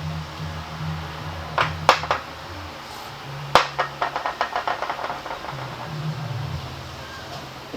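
Metal hand tools at work on a scooter during an oil service: a few sharp clicks, then a hard knock followed by a quick run of ticks, about eight a second, like a ratchet being worked. A steady low hum runs underneath.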